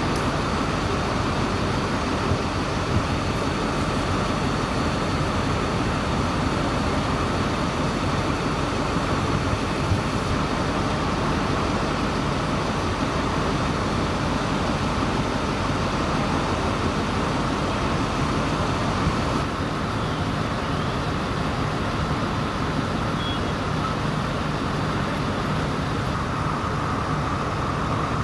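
Steady running of vehicle engines, a constant rumble with a hiss that does not rise or fall.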